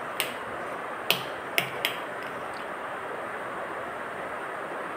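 A steel spoon clinking lightly against a steel bowl while stirring thick batter: four quick clicks in the first two seconds over a steady background hiss.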